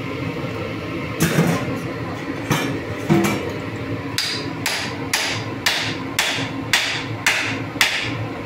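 Meat cleaver chopping into a large whole fish on a cutting board: a few uneven blows, then a steady run of about eight sharp knocks, roughly two a second.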